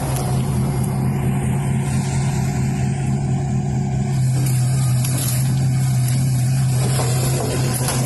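A heavy machine's engine running steadily, with a constant low hum.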